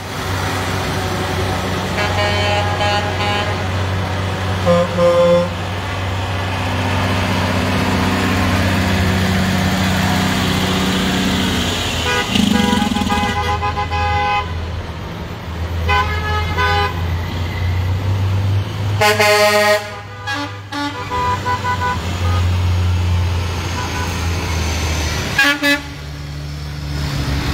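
Tow trucks rolling past with their engines running in a steady low rumble, while drivers sound their horns in a series of separate blasts in salute during a funeral procession.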